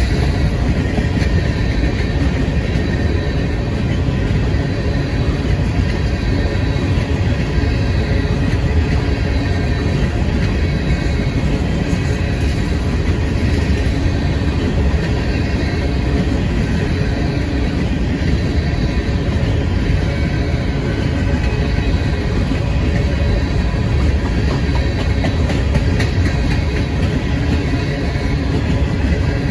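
Freight train of covered hopper cars rolling past: a steady, loud rumble of steel wheels on the rails.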